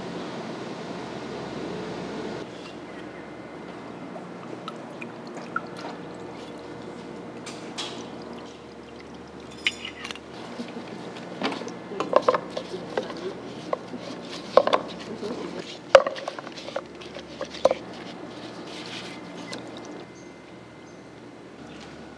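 Kaoliang liquor being poured from a bottle, then slices of mullet roe being dipped in a pot and laid in a plastic crate: wet handling sounds with a run of sharp knocks against the pot and crate, the loudest about 16 seconds in.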